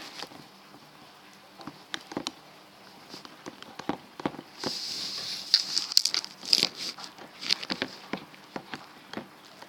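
Toy spoon stirring a sticky mixture of glue and liquid soap in a container, with irregular clicks and scrapes against the container. A denser, wetter stretch of scraping comes about halfway through.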